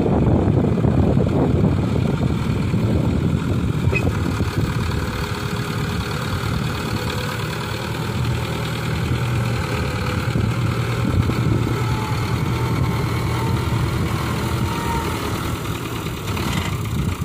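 Farm tractor's diesel engine running steadily while it hauls a trolley heavily loaded with soil through soft, rutted ground.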